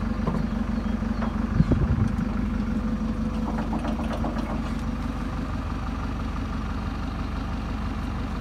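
A diesel engine idling steadily. About a second and a half in there is a loud metallic clank, and a few lighter clinks of metal follow around four seconds in.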